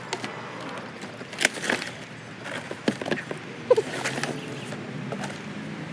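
Handling of a lawnmower and its packaging during unboxing: scattered sharp knocks and clicks with a short squeak. A low steady hum comes in over the second half.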